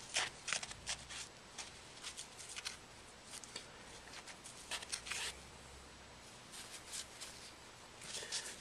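Wiping the smartphone's frame and screen with an alcohol-dampened wipe: faint, irregular scratchy rubbing strokes, some in quick clusters.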